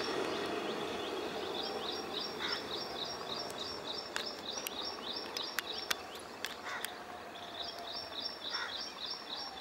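Small birds chirping in fast repeated runs of high notes, about five a second, in two bouts. Under the first second or so, the train's rumble fades away, and a few sharp clicks fall between the bouts.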